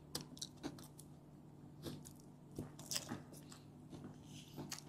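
People chewing and biting into crispy fried chicken wings: scattered short crunches and wet mouth smacks.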